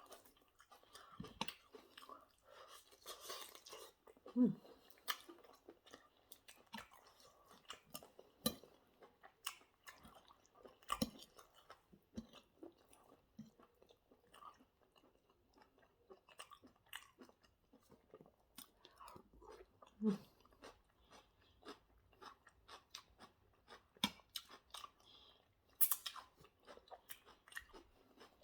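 A person chewing and biting chicken wings and salad, with many irregular crunches and wet mouth clicks, and twice a short low hum.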